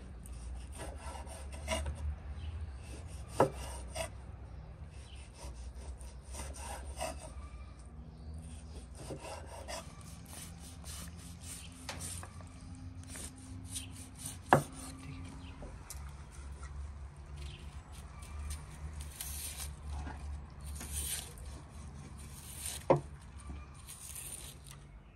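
Kitchen knife slicing raw beef heart on a wooden cutting board: repeated rasping strokes of the blade through the meat, with three sharp knocks as the blade strikes the board.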